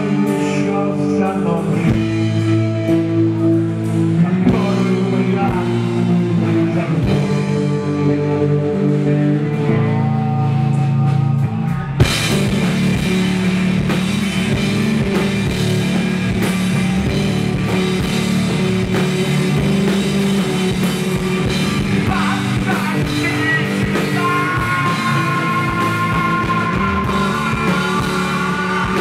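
Rock band playing live: electric guitars, bass guitar and drum kit. About twelve seconds in, the full band comes in hard with crashing cymbals after a sparser, ringing guitar passage.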